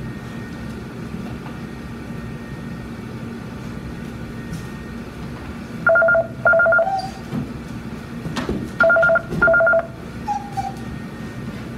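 A telephone ringing with a double-ring cadence: pairs of short electronic beeps that repeat about every three seconds, starting about halfway through. A steady low hum runs underneath.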